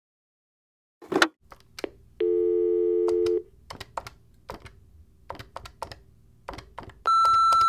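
Telephone call being placed: a handset knock, a low steady phone tone lasting about a second, a run of clicks, then a long high answering-machine beep near the end that signals the start of recording.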